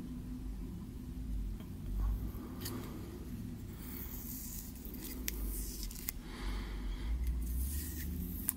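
Small handling sounds: soft rustling and scraping with a few light clicks, over a steady low hum.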